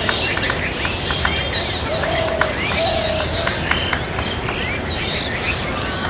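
Several small birds chirping and calling over one another in short, quick notes, with two short low cooing notes from a dove in the middle.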